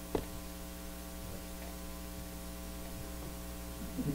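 Steady electrical mains hum with many overtones in the sound system, and a single sharp click just after the start.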